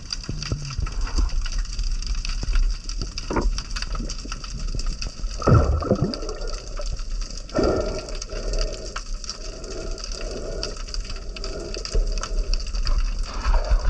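Underwater ambience picked up through a camera housing: a dense crackle of tiny clicks over a low water rumble. Two louder muffled whooshes of water movement come about five and a half and seven and a half seconds in.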